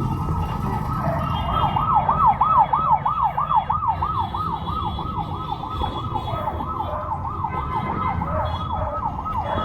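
An electronic siren sounding a fast up-and-down yelp, about three sweeps a second, loudest a couple of seconds in, over a steady low street rumble.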